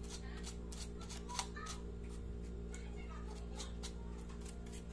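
Small paintbrush brushing dust off a laptop's bare plastic keyboard tray: brisk, scratchy bristle strokes, two or three a second, over a steady low hum.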